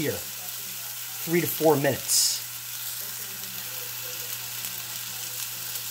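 Steak searing in a hot cast-iron pan with a little olive oil: a steady sizzle.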